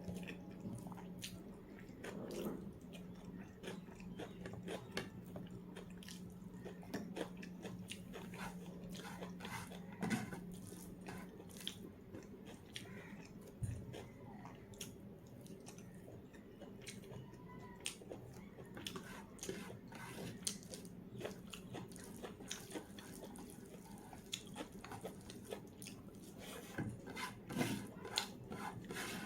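Close-up chewing and crunching of food, with many small wet mouth clicks. A low steady hum runs underneath and stops about ten seconds in.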